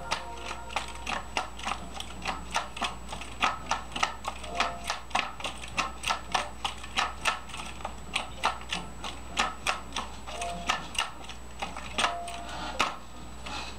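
Color guard rifle being spun and caught in a fast double-time drill: a quick, fairly even run of sharp slaps and clacks of hands striking and catching the rifle, about three a second.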